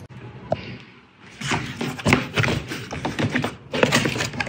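Cardboard box being opened by hand: after a quiet first second, a run of irregular scrapes, taps and rustles as the flaps are pulled back and the box is handled.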